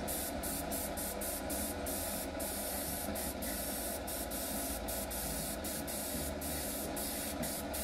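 Badger 200NH single-action airbrush spraying road-stripe paint: a steady hiss of air and paint, broken by many brief gaps as the spray is interrupted.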